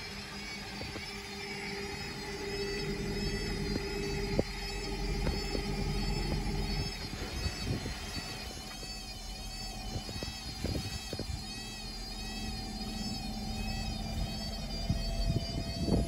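Hotpoint front-loading washing machine running its cycle with laundry turning in the drum: a steady motor hum and low rumble, with scattered light knocks.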